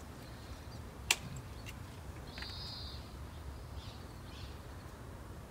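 A bird gives one brief high call over a low steady outdoor rumble. A single sharp click comes about a second in.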